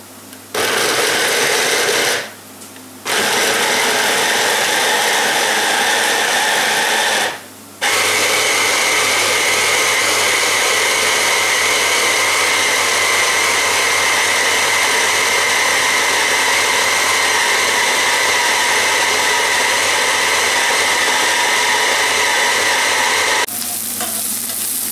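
Electric hand-blender chopper mincing boiled meat, its motor running in three goes: about a second and a half, a pause, about four seconds, a short pause, then a long steady run. Near the end it gives way to chopped onion sizzling in a frying pan as it is stirred.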